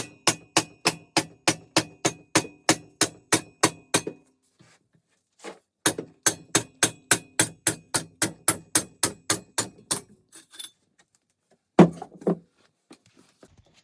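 Rapid hammer blows on metal, about four a second with a faint ring, in two long runs separated by a short pause, then one harder blow near the end: hammering at a piston seized in its cylinder on a VW 1300cc air-cooled engine.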